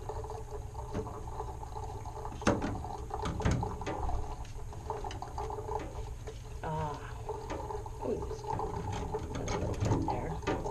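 Grooming scissors snipping now and then at matted fur on a wet dog's legs, a few sharp clicks over a steady low hum.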